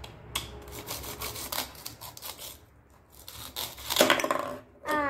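Plastic toy knife sawing back and forth on a plastic toy pineapple in short scraping strokes, then a louder rasping tear about four seconds in as the toy's halves are pulled apart.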